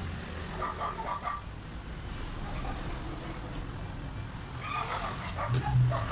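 Low, steady rumble of a motor vehicle engine running in the background, growing louder near the end.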